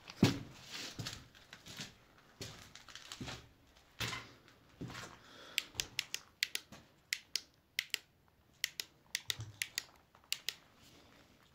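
Footsteps and scuffs on a gritty, debris-strewn floor: a few heavier steps first, then a quick, uneven run of sharp clicks and crunches in the second half.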